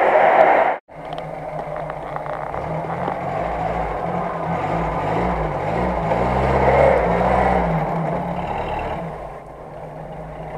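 UAZ-469 off-roader's engine revving under load as it climbs a steep dirt slope, its pitch rising and falling, loudest just before the end and easing off near the end. A short stretch of loud noise cuts off abruptly less than a second in.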